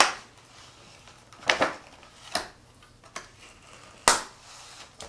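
A small kitchen knife cutting strawberries: six sharp knocks about a second apart, the loudest at the start and about four seconds in.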